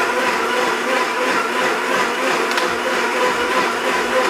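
Countertop blender running steadily at one speed, puréeing a red liquid mixture in its jar, with a steady motor whine.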